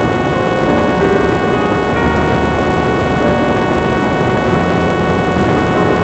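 Parrot Disco fixed-wing drone in fast level flight, heard from a camera on the airframe: a steady rush of wind mixed with the even whine of its electric pusher motor and propeller near full power.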